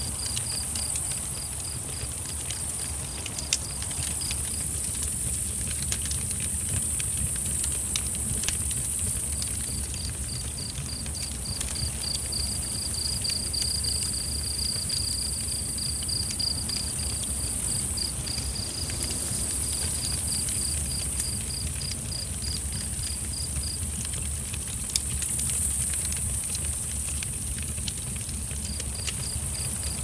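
Night insect chorus: a high, steady hiss of insects with a cricket chirping in rapid pulses that stops twice for several seconds. A campfire gives a few sharp pops.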